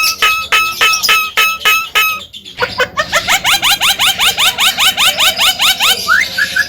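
Javan myna (jalak kebo) singing: a run of repeated short notes, about four a second, until about two seconds in, then after a brief pause a fast series of rising whistled sweeps, about six a second, ending in a few separate rising notes.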